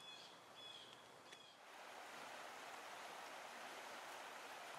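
Faint outdoor ambience: a small bird gives a few short high chirps, about one every half second, in the first second and a half. Then a faint steady hiss takes over.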